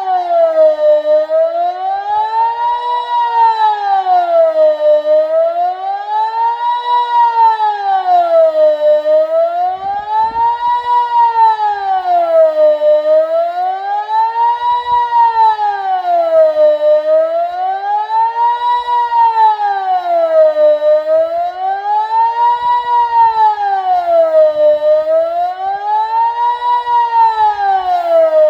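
Delta 8 civil-defence siren, run by an AT 1000 controller, sounding the Swiss general alarm: a loud, continuous wail that rises and falls evenly about once every four seconds.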